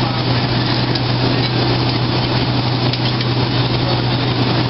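Steady airliner cabin noise inside a Boeing 757: an even rush of air with a constant low hum underneath.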